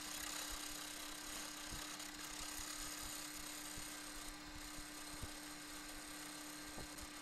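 Wood lathe running with a faint, steady hum while a turning tool shaves a spinning wooden handle blank, giving an even hiss of cutting with a few light ticks.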